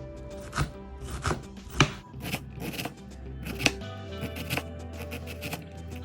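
Knife chopping on a cutting board in irregular strokes, over background music with held notes and a low bass.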